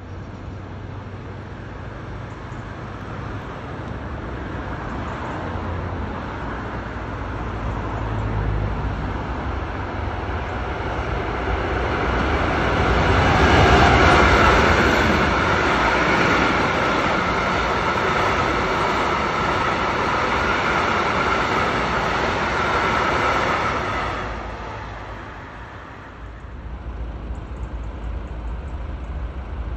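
Freight train of covered hopper wagons approaching and passing close by: a low drone as it nears, then a steady rumble of the wagons rolling past, loudest about 14 seconds in, with a steady high tone over it. The sound falls away suddenly about 25 seconds in, followed by the low rumble of another train approaching.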